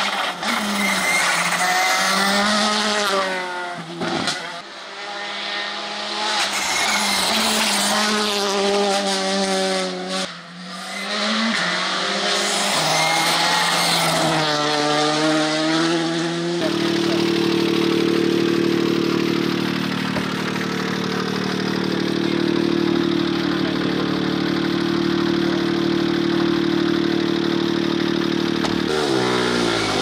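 Rally car engines accelerating hard past at full throttle, the engine note rising and falling through gear changes. About halfway through, the sound changes abruptly to a steady engine idling close by, and its revs rise near the end.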